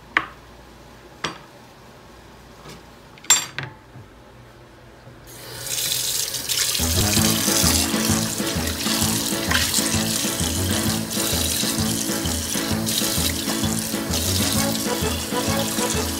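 A few sharp knocks in the first four seconds. About five seconds in, a kitchen tap starts running, water splashing into a ceramic bowl being rinsed in a stainless-steel sink, with background music that has a steady beat from about seven seconds in.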